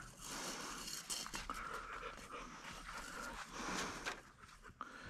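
Quick, rasping panting breaths close to the microphone, coming and going, with a few faint clicks.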